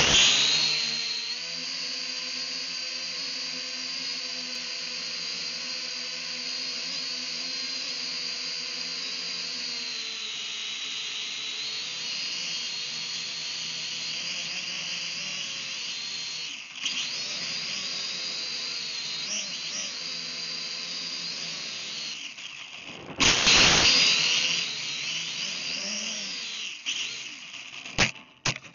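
Small quadcopter drone's electric motors and propellers whining, picked up by its own onboard camera; the whine starts suddenly, shifts in pitch as the throttle changes, and surges louder a few seconds before the end. Near the end come a few sharp knocks as the drone tips over into the grass.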